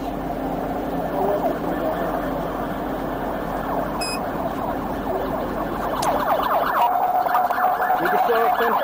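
Emergency-vehicle siren sounding in rapid rising sweeps, growing louder about six seconds in.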